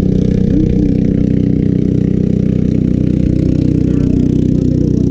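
An engine idling steadily at an unchanging pitch.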